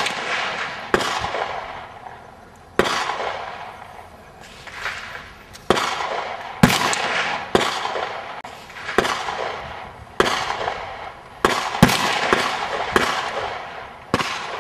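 Rapid rifle fire from Dragunov-pattern 7.62x54R semi-automatic rifles, an SVD and a Tiger: about fourteen sharp shots at uneven spacing, some less than half a second apart, each followed by a long echo.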